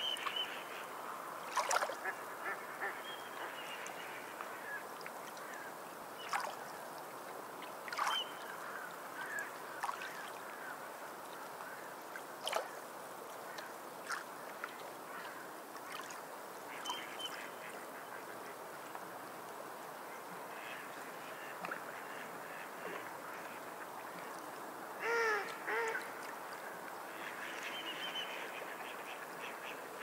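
Sea waves washing and splashing over shoreline rocks, with now and then a sharp splash. Sea birds call from time to time, a louder pair of calls near the end.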